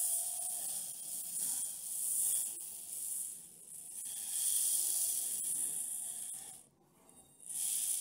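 Two small brushed motor-on-axle motors of a 1/24 scale rock crawler spinning the wheels in the air under throttle, a high gear-and-motor whir that swells and eases several times. It stops for under a second about seven seconds in and starts again just before the end.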